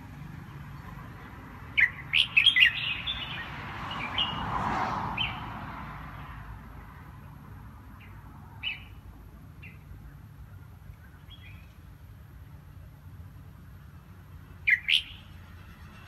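Caged red-whiskered bulbul giving short, sharp chirps: a quick cluster about two seconds in, a few scattered single notes, and a pair near the end. Only brief calls, not full song: a bird that sings only now and then and doesn't dare sing out fully.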